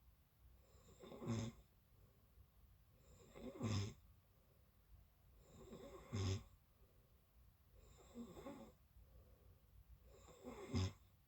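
A person snoring in sleep, one snore about every two and a half seconds, five in all, each building to a short peak.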